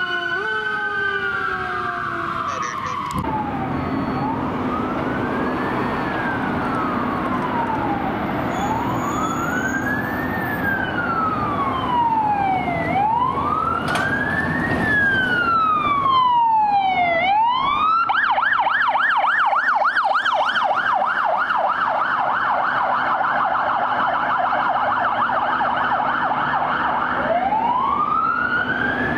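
Electronic sirens of fire-department emergency vehicles running code 3. A siren winds through a slow wail, rising and falling about once every four seconds, then switches to a fast yelp of about three sweeps a second past the middle, and goes back to a wail near the end. In the first seconds another siren sweep with falling stepped tones is cut off, and a steady low hum runs underneath.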